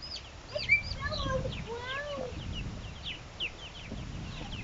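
A flock of young chicks peeping: a steady stream of short, high chirps that slide in pitch, with a longer, lower arched call in the first half.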